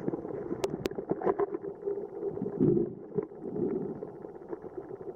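Muffled underwater sound picked up by a camera just below the surface of a lake: a low, uneven gurgling rumble with scattered small clicks and ticks, and two sharp ticks close together near the start.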